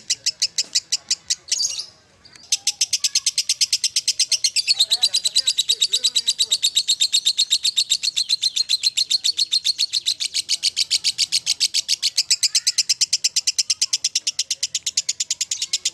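Lovebird ngekek: a long, fast chattering trill of high repeated notes, about eight a second. It breaks off briefly about two seconds in, then resumes and runs on without a break.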